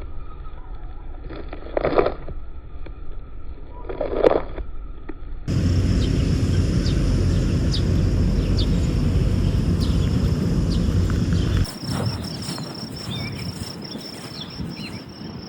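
Outdoor sound with no speech: a few separate soft steps in the first seconds, then a steady low rumble for about six seconds. After that it drops to a quieter background with insects buzzing high and steady.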